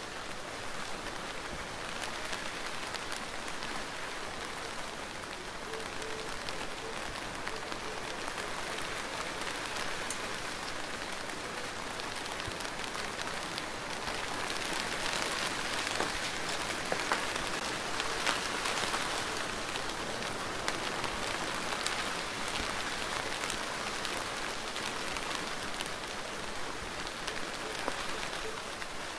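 Steady rain falling, a dense patter of many small drops, swelling a little about halfway through.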